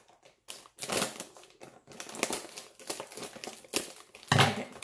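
Crinkly plastic chip bag rustling and crackling as scissors cut across its top to open it, with a louder thump about four seconds in.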